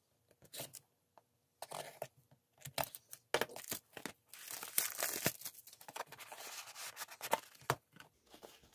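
Clear plastic shrink-wrap on a small cardboard box being slit with a hobby knife and peeled off: scattered crackles and tearing at first, then a few seconds of steady crinkling and tearing of the film near the middle.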